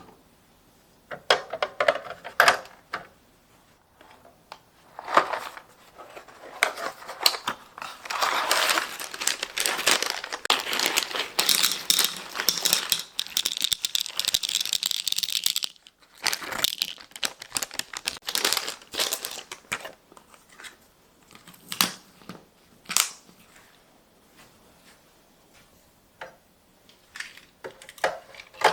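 Plastic wrapping crinkling and rustling for several seconds in the middle, between scattered light clicks and knocks of small items being handled.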